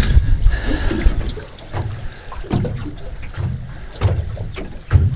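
Small waves slapping against a boat's hull in a few irregular low thumps, with wind buffeting the microphone, heaviest in the first second and a half.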